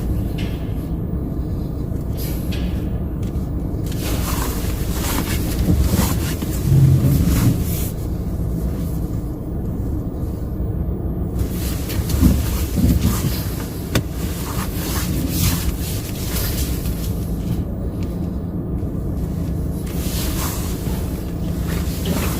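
A car running and moving: a steady low engine and road rumble, swelling louder about seven and again about twelve seconds in.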